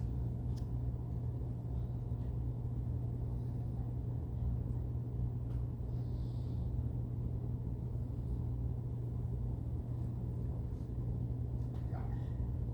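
Steady low hum and rumble of background room noise, with no speech and a few faint ticks.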